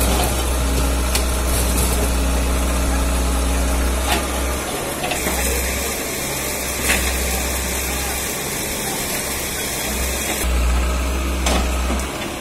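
Diesel engine of a Caterpillar backhoe loader running with a steady low hum, which breaks up and comes back in patches after about four seconds.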